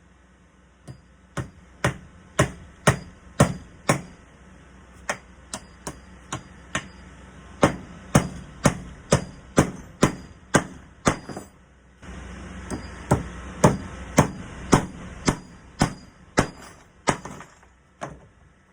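Steel hammer driving hand-forged nails through a wrought-iron door hinge into a wooden door, in runs of sharp blows about two a second with a few lighter taps between. A steady rushing noise lies under the blows for several seconds in the second half.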